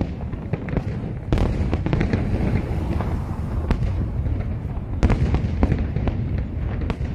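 Aerial fireworks shells bursting in quick succession, sharp bangs and crackles over a continuous low rumble. The bangs come thicker about a second in and again near the five-second mark.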